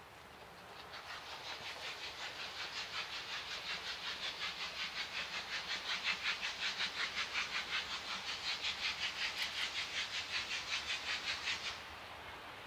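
Steam locomotive working hard, its exhaust chuffing at about three beats a second and growing louder as it approaches. The chuffing stops abruptly near the end.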